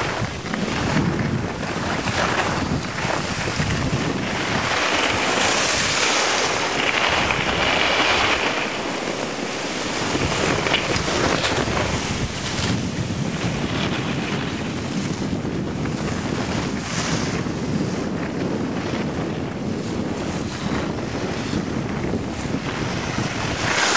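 Wind rushing over the microphone of a camera carried by a moving skier, mixed with skis scraping and hissing over packed snow on the descent. The noise is steady and rough, swelling and fading with the turns.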